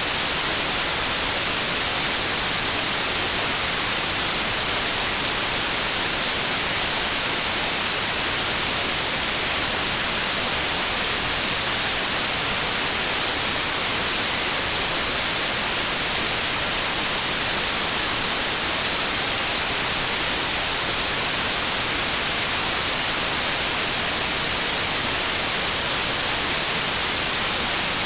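Continuous electronically generated white noise: a steady, loud hiss, brightest in the high frequencies, that never changes.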